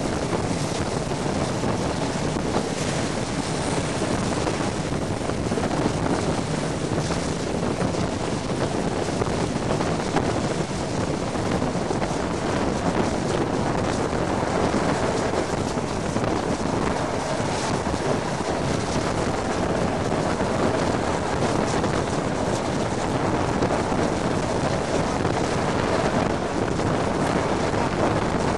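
Steady rush of wind buffeting the microphone at an open window of a moving passenger train, over the train's continuous running rumble.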